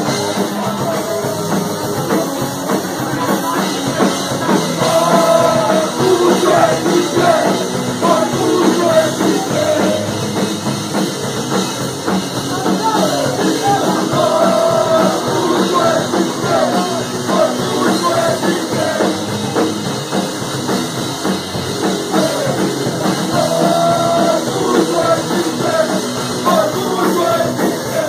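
Oi! punk band playing live: a drum kit and amplified rock instruments, with a sung voice over them.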